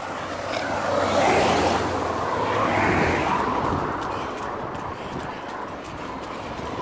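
A vehicle passing on a wet road: its tyre hiss and rumble swell about a second in and fade away over the next few seconds.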